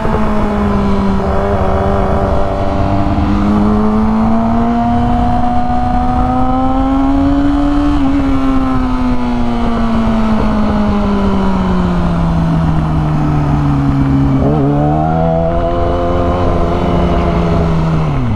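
Motorcycle engine running under way. Its pitch climbs slowly for the first eight seconds, then sinks steadily as the bike slows, with a quick jump up in pitch about fifteen seconds in, and drops away at the very end. Wind noise rushes underneath.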